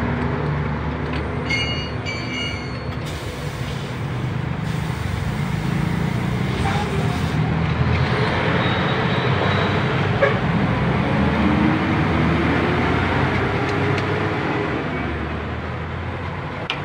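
Steady low mechanical rumble, with a few faint light clicks of a hand tool on metal.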